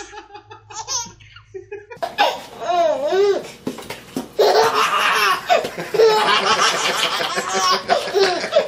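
A baby laughing in bursts one after another, louder from about two seconds in.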